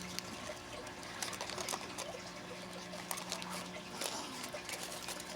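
Faint scattered small clicks and light rustling of costume jewelry being handled and set down on a table, over a faint steady hum.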